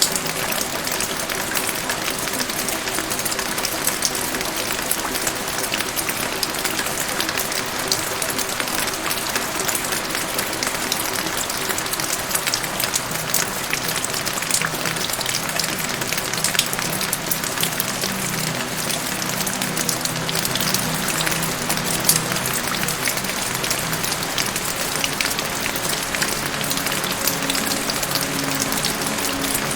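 Steady rain with many close drop hits, over soft background music of low held notes.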